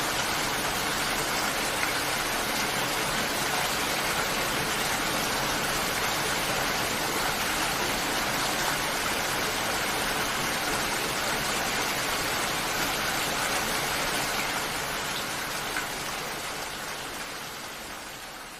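Steady rainfall, an even hiss of many drops, fading out over the last few seconds.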